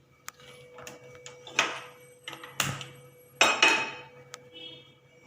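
A metal pan being set on a gas stove and the burner being turned on: a few sharp clicks and several clattering knocks of metal on the stove.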